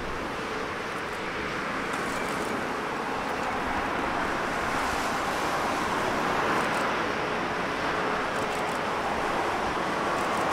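Jet airliner engine noise at an airport, a steady rushing that slowly grows a little louder.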